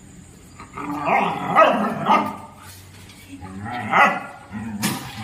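Dog barking and snarling aggressively at a cat in short bursts, a run of them about a second in and another about four seconds in, with a brief sharp noise just before the end.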